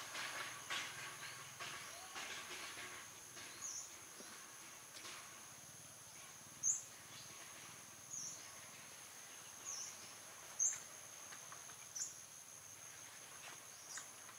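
Faint outdoor ambience: a steady high insect trill, with short high chirps every second or two, the sharpest about 7 and 11 seconds in. Soft rustling in the first few seconds.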